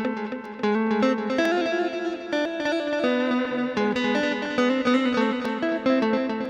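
Electric guitar played through a Zoom G1X ON multi-effects pedal set up for a chicha sound: a melodic line of quick single plucked notes, testing the patch.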